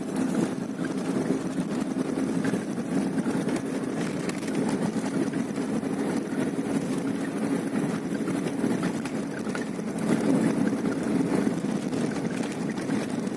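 An engine running steadily, a low even drone with a faint hum.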